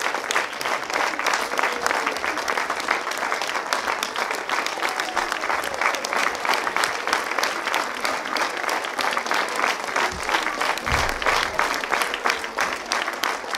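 Audience and cast applauding: dense, steady clapping that keeps up without a break, with a few voices faintly over it.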